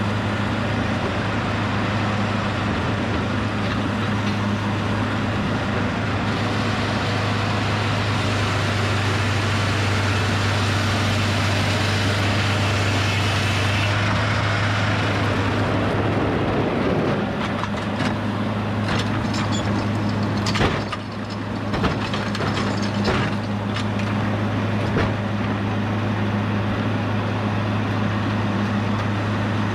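Hydraulic sawmill's power unit running with a steady hum. A saw cuts through a log in the first half, then several sharp knocks and clunks follow.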